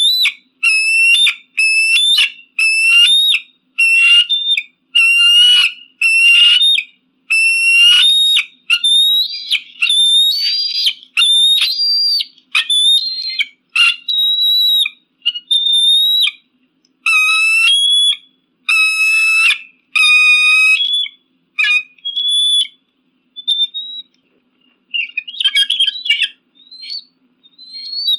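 Eagle calling: a long series of loud, high, whistling call notes, about one a second, many ending in an upward rise. In the last several seconds the calls come sparser and shorter, with a harsher burst near the end.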